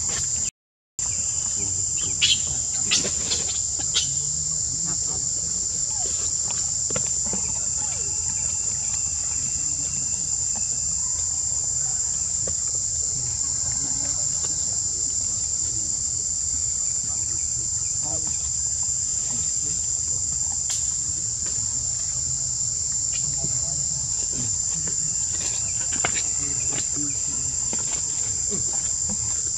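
Steady, high-pitched drone of insects with a faint low rumble beneath. The sound cuts out for a moment about a second in, and a few short clicks or snaps come a couple of seconds later.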